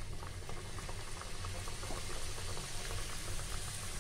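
Gujiya deep-frying in hot oil in an aluminium kadhai: a steady sizzle of bubbling oil, dense with small crackling pops, over a low steady hum.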